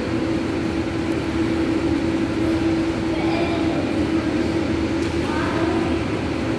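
Steady machinery hum in an indoor pool room, a constant drone with a low rumble beneath it that does not change.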